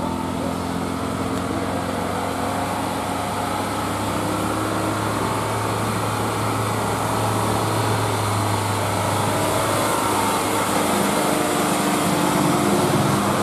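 Isuzu light truck's diesel engine running steadily under load as the truck rounds a tight hairpin bend, growing louder toward the end as it comes closer.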